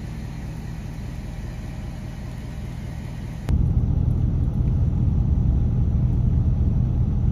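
Low, steady rumble of a truck engine running, heard from inside the cab, stepping up suddenly to a louder rumble about halfway through.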